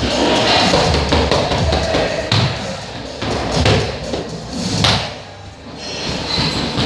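Boxing-gloved punches and kicks hitting a freestanding body-opponent training dummy: a series of dull thumps at uneven intervals, with a lull about five seconds in.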